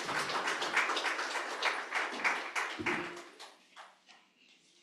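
Audience applauding: a crowd's hand clapping that thins out and stops about three seconds in, with a dull thump just before it ends.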